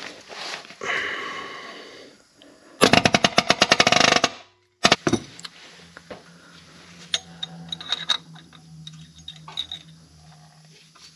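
Cordless impact wrench spinning a manifold nut or stud, then hammering rapidly for about a second and a half as the fastener tightens. After that come light scattered clicks, with a hand ratchet working the same fastener near the end.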